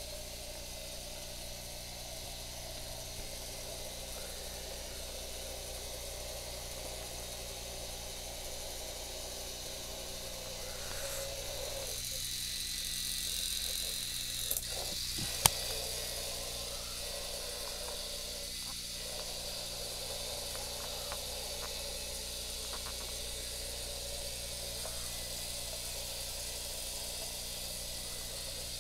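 Small battery-powered K'Nex motor whirring steadily as it drives a toy car, louder for a few seconds around the middle as it passes close by. A single sharp click comes about halfway through.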